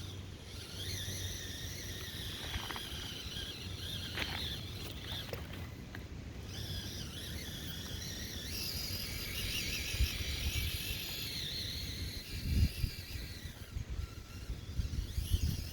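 Small brushed electric motor and gears of an Axial SCX24 1/24-scale crawler whining, the pitch rising and falling with the throttle, with a few thumps near the end.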